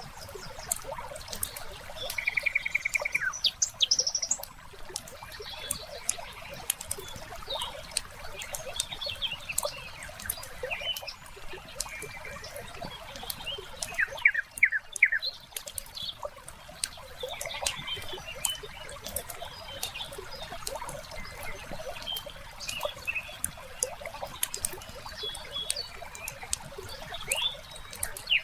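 Wood fire crackling with frequent sharp pops, while small birds chirp on and off, including a fast trill about two seconds in and a quick run of chirps about halfway through.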